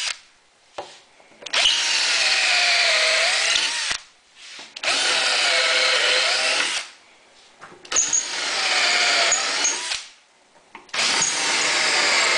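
Cordless drill with a 3/8-inch bit boring holes into the edge of a wooden table leaf, run in four bursts of about two seconds each with short pauses between. In each run the motor's pitch sags as the bit bites and rises again.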